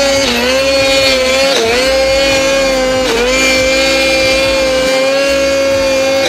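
Snowmobile engine running hard at high revs while climbing a steep slope in deep powder. The pitch holds steady apart from three brief dips, about half a second, a second and a half, and three seconds in.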